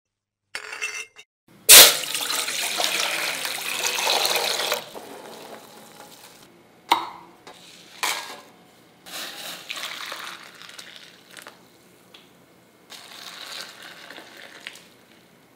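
Water poured into stainless-steel bowls: a long pour starting suddenly about two seconds in and a shorter one near the end. In between come a few sharp clinks of steel and wet sloshing as soaked tamarind is worked in the water.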